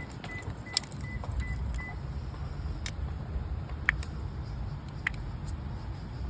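Car engine idling with a low, steady rumble, on a car that has a misfire. A warning chime beeps about six times, roughly three a second, in the first two seconds, and a few sharp clicks, like keys or trim being handled, sound through the rest.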